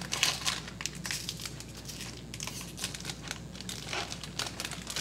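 Foil trading-card pack wrapper being torn open and crinkled by hand while the cards are pulled out, in irregular crackling spurts that are loudest right at the start.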